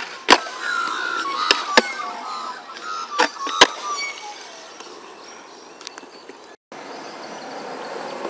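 Skateboard wheels rolling on concrete, with several sharp clacks of the board popping and landing, bunched in the first four seconds.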